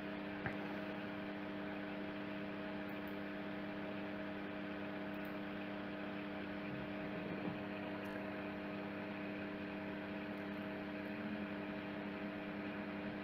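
Steady electrical hum in the recording, made of several constant low tones over a faint hiss, with a faint click about half a second in.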